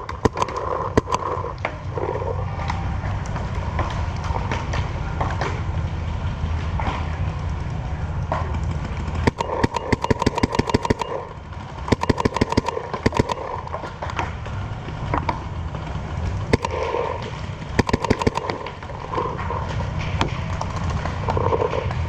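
Paintball markers firing rapid strings of shots, with several bursts in the middle and later part and scattered single shots between, over a steady low rumble.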